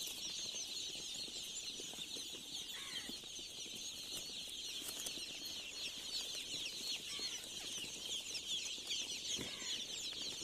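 A large flock of chicks peeping all at once in a dense, continuous high-pitched chorus, with a single knock near the end.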